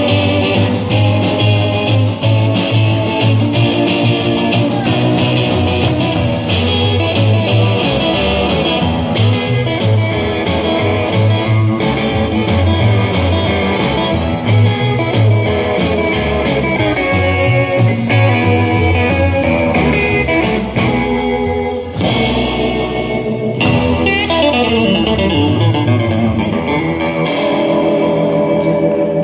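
Live blues band playing: an electric guitar takes the lead over upright bass and drums, with a steady walking low beat and a short break in the full band sound about three-quarters of the way through.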